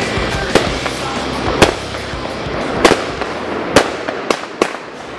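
Fireworks going off: a series of sharp bangs at irregular intervals over a steady crackling hiss.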